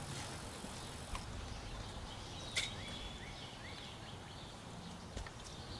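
Quiet outdoor background noise. About two and a half seconds in there is a sharp click, followed by a few faint, short, rising bird chirps.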